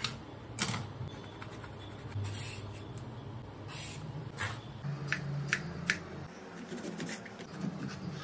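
Knife and vegetable peeler working cucumber on a plastic chopping board: scattered short taps and scrapes, with three quick strokes in a row about five seconds in.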